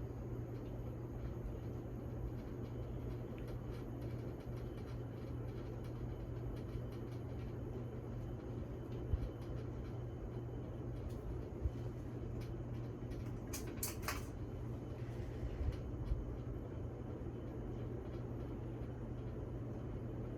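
1993 Fasco Gulfstream ceiling fan running, its motor giving a steady low hum, with a few scattered light clicks and a brief burst of clicks about two-thirds of the way through.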